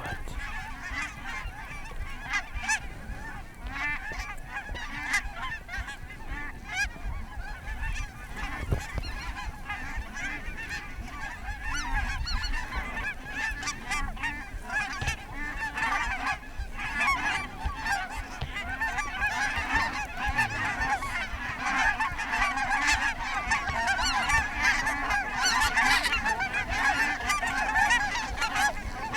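A large flock of geese honking continuously, a dense overlapping chatter of calls that grows thicker and louder in the second half.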